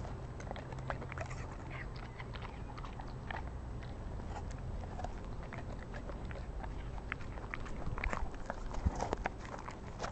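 Czechoslovakian wolfdog biting and chewing a piece of apple: irregular crisp crunches and wet chewing clicks, with a run of louder crunches about eight to nine seconds in.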